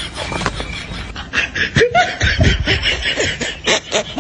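Girls giggling and snickering in quick, short bursts.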